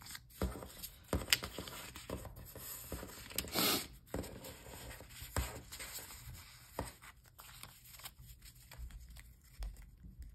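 Paper sticker sheets being gathered and stacked by hand: the rustle and slide of small card-stock sheets, with scattered light taps on a tabletop. The loudest sound is a brief rustle about three and a half seconds in.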